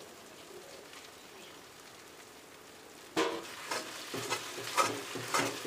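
Ghee poured onto thick beetroot halwa sizzles steadily in a hot kadai. About three seconds in, a steel spatula starts stirring and scraping the pan, about two strokes a second.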